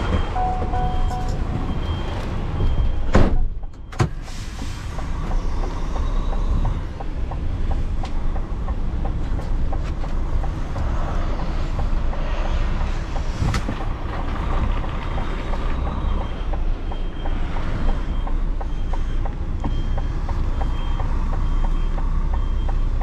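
DAF XF tractor unit's diesel engine running at low revs, heard from inside the cab during a slow reverse, with the reversing beeper giving repeated beeps in the first couple of seconds and again through the last seven seconds or so. A loud thump about three seconds in.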